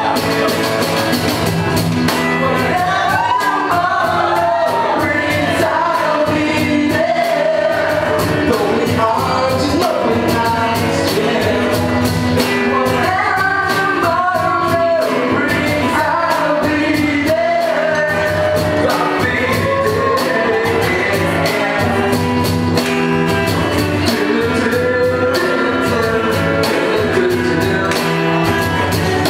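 Live rock band playing a song with a lead singer: sung melody over guitars, bass and a steady drum beat, loud and continuous.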